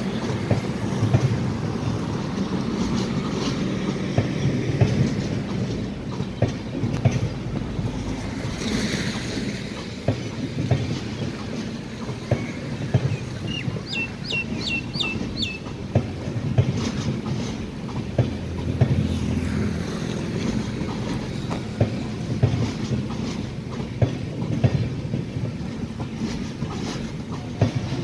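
LHB passenger coaches of an express rolling slowly into a station. A steady low rumble runs under irregular clattering of the wheels over rail joints and points. About 14 s in there is a quick series of five short high chirps.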